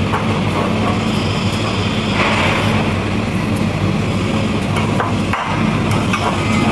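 Stick-welding arc with a 7018 electrode, crackling steadily with dense small pops over the low hum of the welding machine. The low end drops out briefly just past five seconds in.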